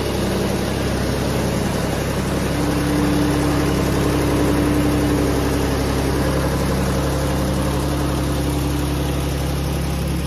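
Kubota F3080 front mower's diesel engine running steadily at idle.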